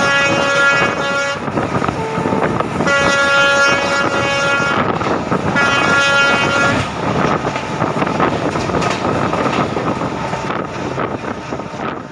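Indian Railways WDP-4 diesel locomotive horn sounding three long blasts, with a short lower-pitched note between the first two. After about seven seconds the horn stops, and the noise of the passing train carries on with wind on the microphone.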